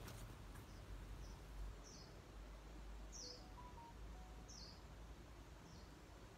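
A small bird calling, about six short, high chirps that each fall in pitch, spaced roughly a second apart, faint over a low background rumble.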